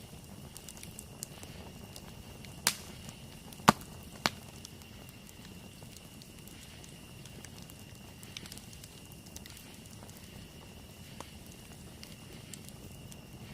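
Wood campfire burning with a low steady rush and scattered small crackles, and three sharp pops about three to four seconds in, the middle one the loudest.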